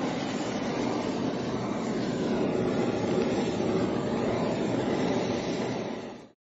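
Handheld butane canister blowtorch burning with a steady hiss as it sears cubes of salmon; the sound cuts off abruptly near the end.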